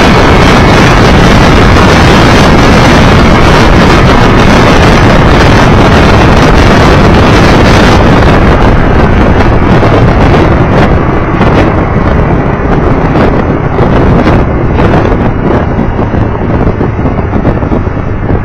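Heavy wind noise battering the microphone of a camera on a moving motorcycle, over road and engine rumble. It eases off in the second half as the bike slows toward a traffic light.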